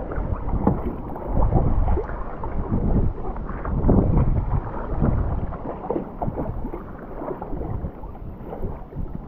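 Sea kayak paddle strokes: the blades dip and splash and water washes along the hull, with wind buffeting the microphone. The splashing is strongest in the first half and eases off after about six seconds.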